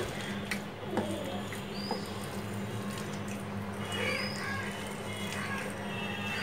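A hand kneading mashed eggplant with rice flour in a plate, making soft, faint squishing. Short high chirps come about 2, 4 and 6 seconds in, over a steady low hum.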